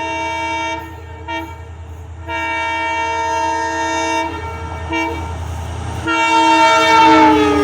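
Express train locomotive horn sounding a chord of several tones in a series of blasts: one ending about a second in, a short toot, a long blast of about two seconds, another short toot, then a final blast whose pitch drops as the locomotive passes. The low rumble of the running train sits underneath, and a rushing noise of the passing coaches rises near the end.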